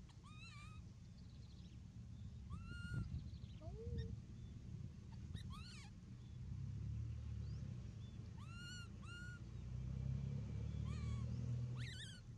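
Baby macaque giving short, high-pitched coo calls, each rising and then falling in pitch, one every second or two, the calls of an infant wanting to cling to its mother. A low rumbling noise runs underneath.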